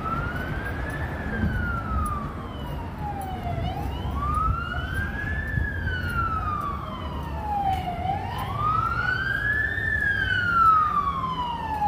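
An emergency vehicle siren in wail mode, slowly rising and falling in pitch and repeating about every four seconds, over a steady rumble of street traffic.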